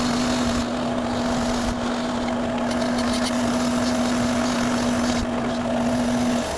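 Motor-driven buffing wheel spinning with a steady hum and a dense grinding hiss as a rusty lathe part is pressed against it to strip the rust. The hiss shifts a few times as the part is moved, and the wheel cuts off just before the end.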